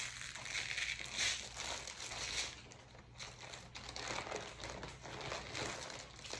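Plastic mailer bags and clear plastic packaging crinkling and rustling as hands rummage through them and pull an item out, with louder crinkles in the first couple of seconds.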